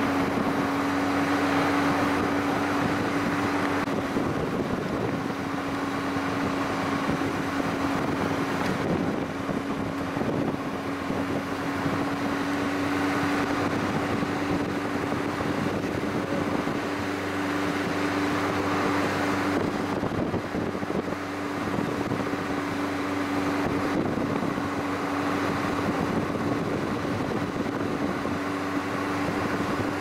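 Car driving along a road: steady engine hum and tyre and road noise, with no change in pace.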